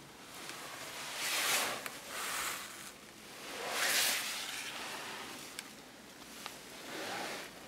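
Rustling and handling noise from the camera and clothing moving around inside a car cabin, in several swells, with a few faint clicks.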